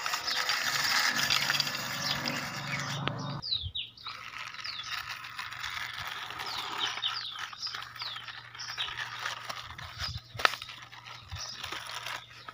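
A small toy tractor rattling and scraping as it is pulled along dirt. After a sudden break about three seconds in, quieter scraping and a few clicks go on, with short falling bird chirps and a faint steady low hum.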